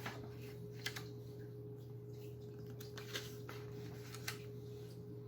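A few short soft clicks and rustles of a paper picture book being handled, over a steady low hum.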